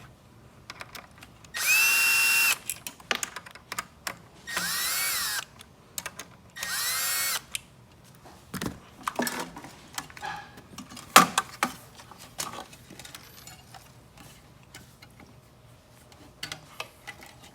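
Cordless drill/driver running in three short bursts, each whine spinning up and winding down, as screws are backed out; small clicks and knocks of parts and screws being handled follow.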